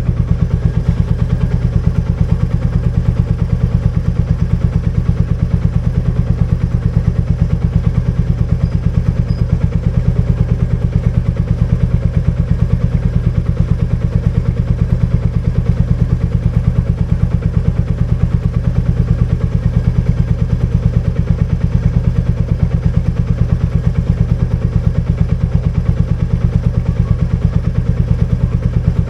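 Royal Enfield Meteor 350's single-cylinder engine running steadily at a low, even speed, its exhaust beating in a regular, unchanging pulse.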